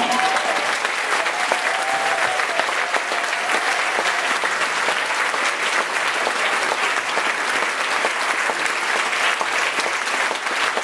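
Sustained applause from a crowd of many people clapping, the choir joining in, at a steady level throughout.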